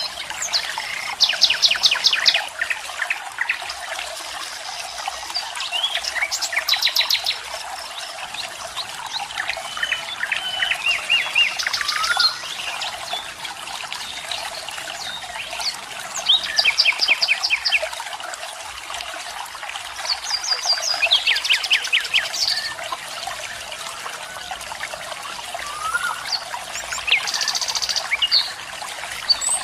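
Wild birds singing, with rapid trilled phrases repeating every few seconds and short chirps and whistles between them, over a steady rush of flowing water.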